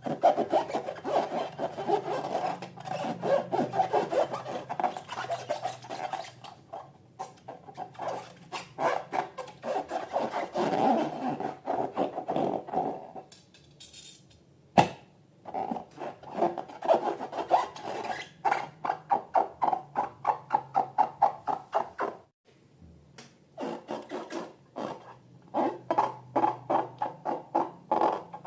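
Slime being worked and squished, a fast run of short sticky clicks and squelches that pauses briefly twice, with one sharp snap about halfway through.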